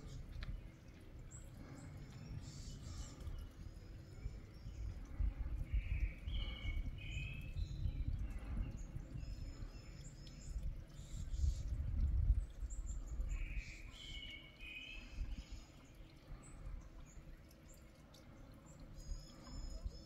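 Wind gusting against the microphone in an uneven low rumble, with wild birds singing over it: a short phrase of a few chirps, heard twice (about six and fourteen seconds in), and faint, higher twittering now and then.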